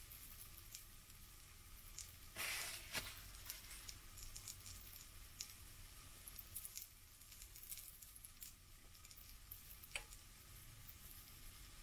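Faint sizzling and crackling of a pancake frying in hot fat in a frying pan, with scattered small pops. A brief louder hiss comes about two and a half seconds in, and a single sharp click near the end.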